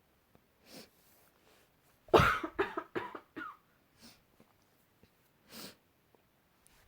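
A person sneezing loudly once, set off by wood dust. A short sharp breath comes first, the sudden sneeze about two seconds in trails off in a few broken pieces, and two fainter breathy sounds follow.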